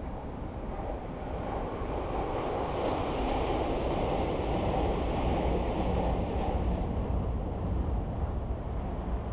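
Road and wind noise from a moving vehicle, a steady rush that swells for a few seconds in the middle and then eases off.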